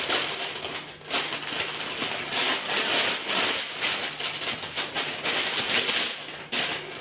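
Christmas wrapping paper being torn and crinkled as a present is unwrapped, a continuous crackling rustle that dips briefly about a second in and again near the end.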